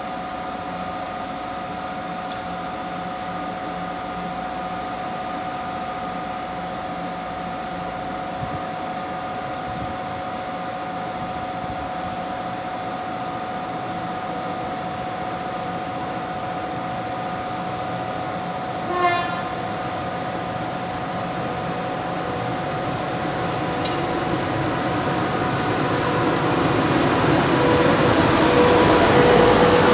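Electric locomotives at a station: a steady hum with several fixed tones from a standing locomotive's blowers, a brief horn toot about two-thirds of the way through, then a rising rumble as a pair of class 220 Hellas Sprinter electric locomotives approaches, loudest at the end.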